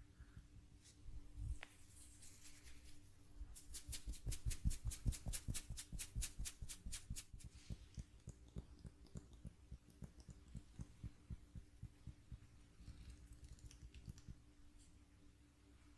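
Massage tapping: hands patting rhythmically on the body. There is a fast, even run of about five taps a second from about three and a half to seven and a half seconds in, with softer, sparser pats before and after, over a faint steady hum.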